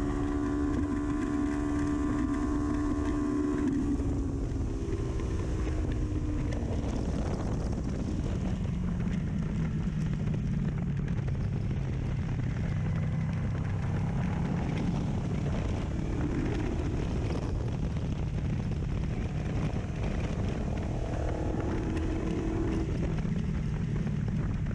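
2019 Kawasaki Ninja 400's parallel-twin engine through an aftermarket full exhaust. It holds a steady high note for about four seconds, then drops in pitch as the revs fall, and keeps running at lower revs with small rises and falls for the rest.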